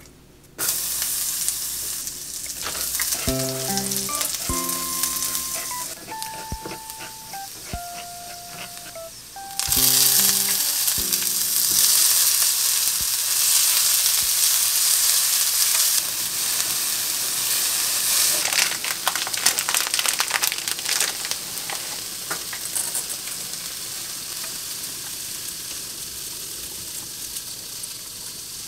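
Sliced onion and red bell pepper sizzling in oil in a nonstick frying pan while being stirred with chopsticks. The sizzle starts about half a second in, jumps louder around ten seconds in, then settles into a steadier, slightly quieter sizzle.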